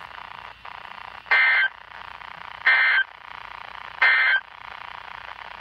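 Emergency Alert System end-of-message data bursts on NOAA Weather Radio: three short, buzzy digital bursts about 1.4 s apart, over steady radio hiss. They signal the end of the alert.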